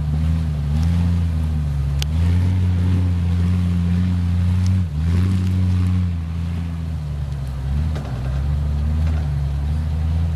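Off-road vehicle's engine running at low revs, its pitch rising and falling as the throttle changes, with a brief dip just before five seconds in.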